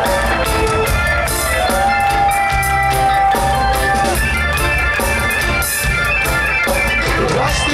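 A reggae band playing live through a festival PA, with drums and a steady hi-hat, deep bass, keyboards and guitar. A long note is held from about two seconds in for a couple of seconds.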